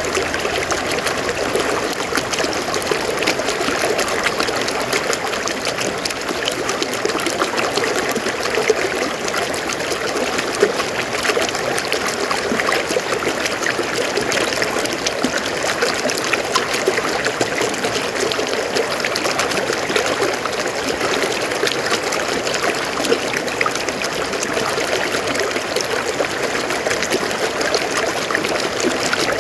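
River water flowing and trickling steadily over rocks, a continuous even rush with fine splashing.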